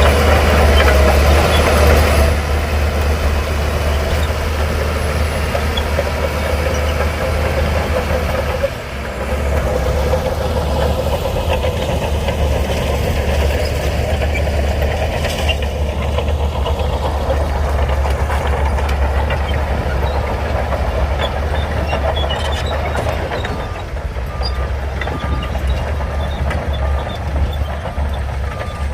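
Heavy diesel engine of an earthmoving machine running, with a steady low rumble; the engine note dips briefly about nine seconds in. Near the end a short beep repeats about once a second.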